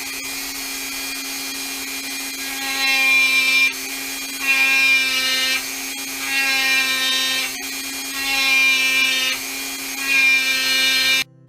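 Small power tool with a fine abrasive attachment running steadily and clearing polyurethane from a carved aspen walking stick. It swells louder in regular passes about every two seconds as it is pressed to the wood, then cuts off abruptly near the end.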